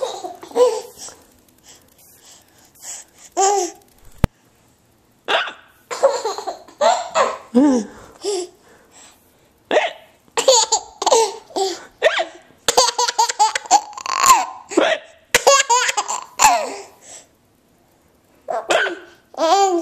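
A baby laughing in repeated bursts at a woman's hiccups, the hiccups coming between the fits of laughter.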